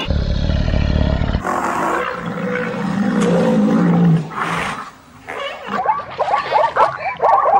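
Wild animal calls: a deep rumble, then a low growling roar, then from about 6 s a rapid string of short barking yelps, three to four a second, typical of zebras barking.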